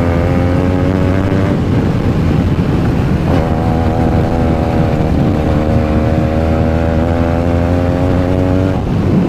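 Motorcycles riding along at a steady cruise, the engine note held at an even pitch. An upper engine tone drops away about a second and a half in and comes back about two seconds later.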